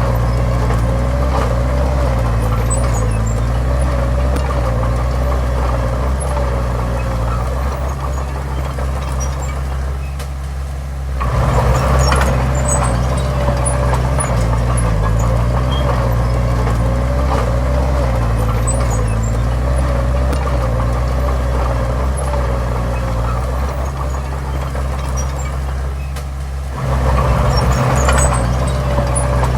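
Diesel engine of a small crawler bulldozer working, running steadily with a wavering whine. It eases off slightly, then picks up sharply under load about eleven seconds in and again near the end.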